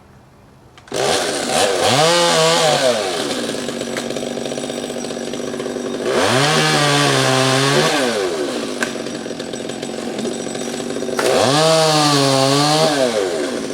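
Chainsaw comes in suddenly about a second in, then is revved up hard three times, each rev rising and falling in pitch, with lower steady running between the revs.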